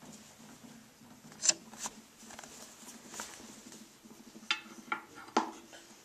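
Scattered light clicks and clinks from handling a porcelain toilet tank lid, with a sharp knock about one and a half seconds in and a few more near the end, over a faint steady hum.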